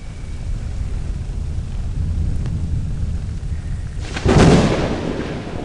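Thunderstorm recording: thunder rumbling low and steady, then a sharp, loud thunderclap about four seconds in that fades away over a second or so.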